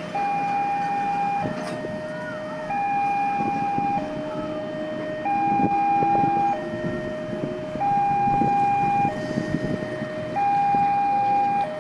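Railway level-crossing warning alarm sounding a two-tone signal, a higher and a lower tone alternating about every 1.3 seconds, the warning that a train is approaching and the crossing is closed. Road traffic runs underneath.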